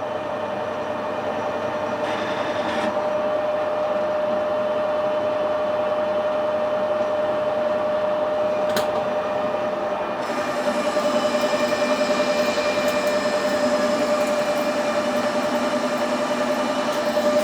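Metal lathe running with a steady whine while a 2 mm cut is turned off a round bar to bring its diameter down. About ten seconds in, a brighter hiss joins the whine.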